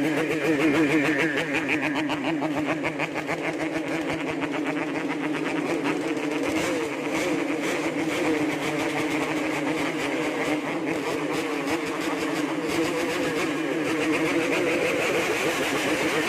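Yamaha RX-King's two-stroke single-cylinder engine being revved hard and held high, its pitch wavering with the throttle.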